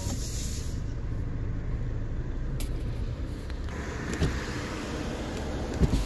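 Car engine idling at a standstill, a steady low rumble, with a few light clicks and a short knock near the end.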